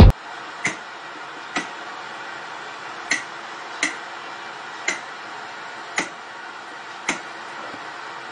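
Rotary channel selector of an old television clicking round, seven sharp clicks about a second apart, over a steady hiss of TV static.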